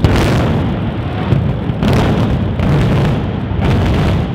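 Explosive demolition of a large concrete office building: sharp blasts, the first and loudest at the very start and more about one and two seconds in, within a continuous heavy rumble.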